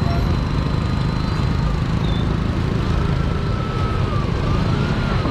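Steady low rumble of engines aboard a Mekong river car ferry. From about halfway through, a thin tone slowly rises and falls above it.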